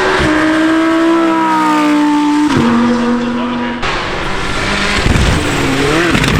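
High-performance car engine running under load, its pitch easing down and then dropping in a step about two and a half seconds in, like a gearchange. Near the end there is a quick blip of revs that rises and falls.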